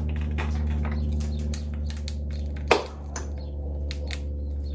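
Hydraulic floor jack being pumped to lift the heavy engine end of a car, giving a run of short clicks and creaks with one loud metallic clank about three seconds in, over a steady low hum.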